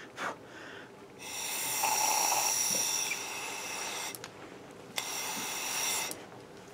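Air blown by mouth through a rubber fuel hose into a 1979 Sportster carburetor's fuel inlet, hissing and whistling past the float needle valve: one long blow of about three seconds, then a shorter one about five seconds in. It is a check that the float valve lets air through and seals.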